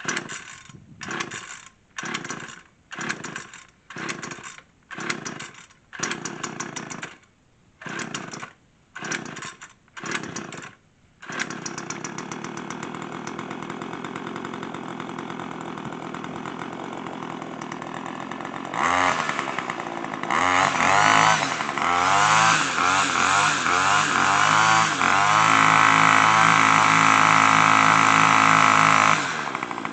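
Homelite straight-shaft string trimmer's two-stroke engine pull-started from cold: about a dozen short bursts as the cord is pulled again and again. It catches about 11 seconds in and idles, is revved in surges, is held at high speed for a few seconds, then drops back to idle near the end.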